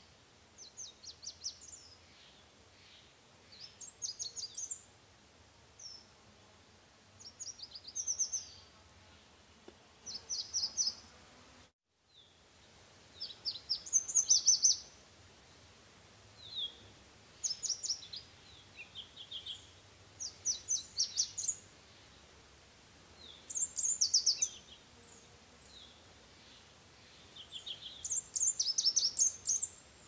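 Red warbler singing: short, high phrases of rapid twittering notes, repeated every second or two. The song breaks off in a brief dropout about twelve seconds in.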